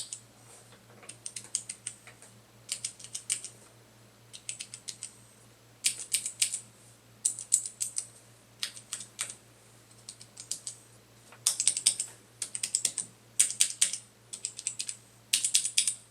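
Cherry MX mechanical switches on a PCB-mounted sampler kit being pressed in quick bursts of four to six clicking keystrokes, a burst every second or so, as the keys are compared without and with rubber O-ring dampeners under the keycaps.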